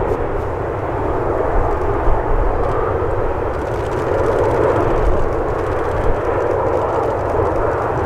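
Airbus A380's four Rolls-Royce Trent 900 jet engines running steadily at low taxi power, an even jet hum with a low rumble underneath.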